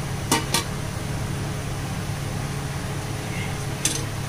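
Steady low hum with an even rushing noise, broken by two sharp clicks just after the start and one more near the end.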